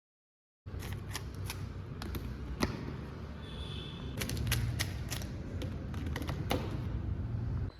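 Plastic Rubik's cubes being handled and turned: irregular sharp clicks and taps over a low rumble, starting abruptly less than a second in.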